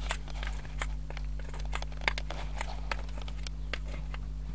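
A plastic dibber poking holes in soil through a plastic seed-spacing template: irregular clicks, taps and crunchy scrapes, over a steady low hum.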